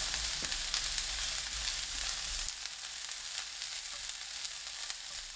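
Sliced celery stir-frying in olive oil over high heat: a steady sizzle with light clicks and scrapes of a spatula tossing it.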